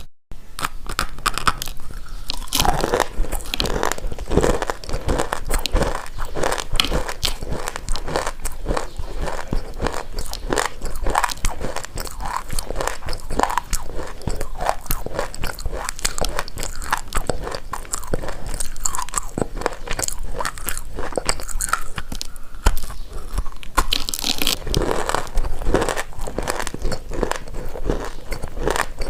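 Baked loess subsoil being bitten and chewed: a dense, continuous run of dry crunches and crackles.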